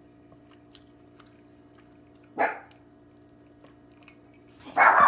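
A dog barking: one short bark about two and a half seconds in, then loud barking starting near the end.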